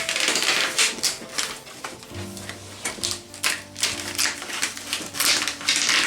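Plastic diffuser sheets and panel parts of an LED TV being handled, a dense run of irregular clicks and crackles. A low steady tone runs under it for a couple of seconds in the middle.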